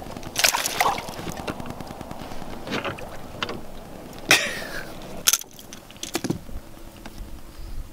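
Scattered knocks, rattles and sharp clicks as a small bass on a crankbait is swung aboard an aluminum jon boat and handled, with a metallic jingle among them.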